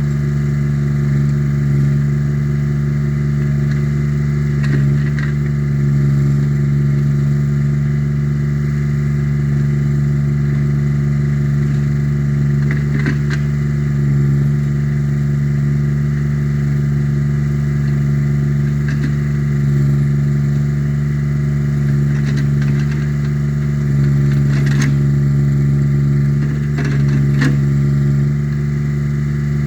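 Small engine of an Allmand 225 mini backhoe running steadily, with a few sharp clanks or knocks now and then.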